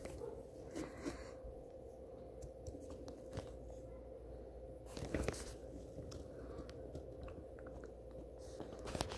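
Faint rustling and soft scattered clicks from a phone held close and shifting against a person's face and clothing, with a somewhat stronger rustle about five seconds in, over a faint steady hum.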